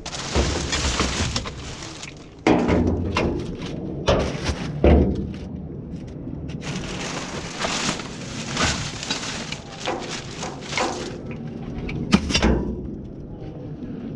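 Rubbish being rummaged through and handled: rustling with a run of knocks and clatters of objects, sharpest about two and a half seconds in, at five seconds and near the end.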